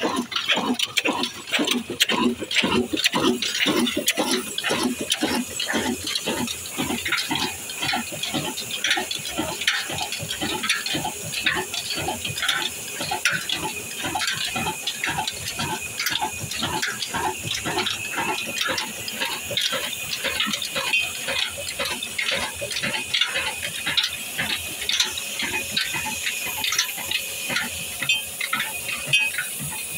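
Old Ruston Hornsby stationary engine with a large flywheel running with an even, rhythmic beat from each firing stroke. It is a little louder in the first few seconds, then settles to a steady level.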